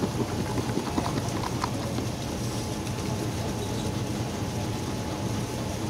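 Steady outdoor street background with a low hum, and a few light taps and knocks in the first two seconds as utensils and a plastic jar are handled at a food cart.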